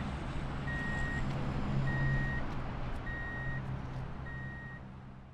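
An electronic warning beeper sounds a single high tone about once every 1.2 seconds, each beep about half a second long. Under it runs a low steady engine-like hum. Both fade out near the end.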